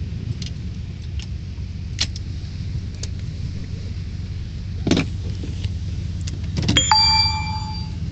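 Truck cab interior while driving off-road: steady low engine and road rumble with scattered knocks and rattles as the truck jolts. Near the end a sharp metallic clang rings out for about a second.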